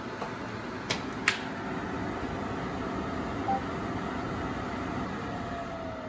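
Xiaomi Mi Purifier Pro H's DC fan blowing steadily, a whooshing air rush from the top grille. Two sharp clicks come about a second in, a short beep in the middle, and near the end the motor's pitch starts to fall as the fan slows down.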